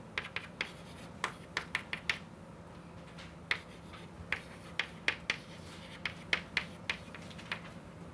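Chalk writing on a blackboard: an irregular run of sharp taps and short scratches as each stroke of an equation is written.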